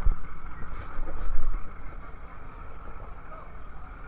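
Fishing boat's engine running steadily: a low rumble with a constant higher hum above it.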